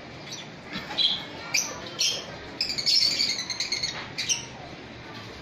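Lovebirds calling with short, sharp, high-pitched chirps and squawks: a few single calls, then a burst of rapid chattering about halfway through.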